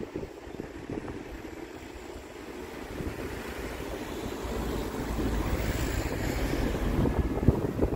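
Wind buffeting the microphone, building from about three seconds in to a strong low rumble near the end.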